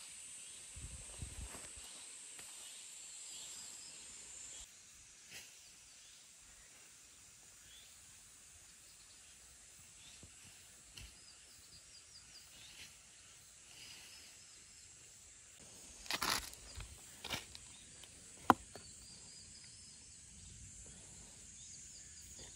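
Faint countryside ambience: a steady high hiss that drops away after a few seconds, scattered short bird chirps, a couple of brief rustles, and one sharp click past the middle.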